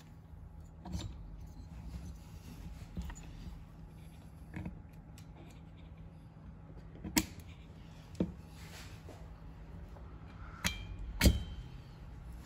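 Scattered small metal clicks and taps of a screwdriver and piston ring being worked onto the piston of a two-stroke brush cutter, over a faint low hum. The loudest click comes near the end, with a brief metallic ring after it.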